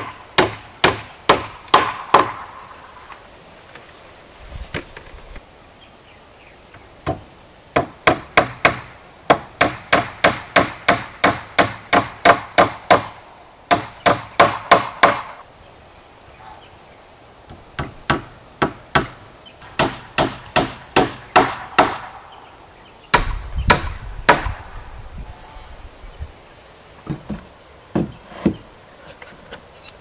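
Claw hammer nailing wooden roof planks, struck in runs of quick blows about two or three a second, with short pauses between the runs.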